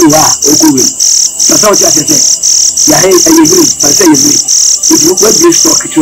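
Crickets chirping loudly in a fast, even pulse of about five chirps a second, under a man's talking.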